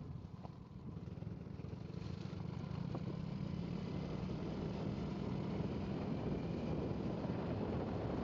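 Motor scooter engine running as the bike rides along, its hum growing louder over the first few seconds as it picks up speed, then holding steady.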